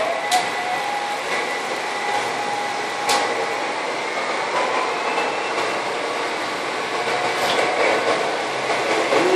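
Several electric model trains running around a large toy layout: a steady rumble of wheels on track with a thin motor whine. Bubble wrap is popped three times, with sharp pops near the start, about three seconds in and about seven and a half seconds in.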